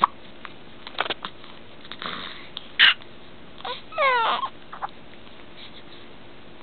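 Two-week-old newborn hiccuping: a few short, sharp hics at uneven intervals, the loudest just before three seconds in. About four seconds in comes a brief, falling whimper.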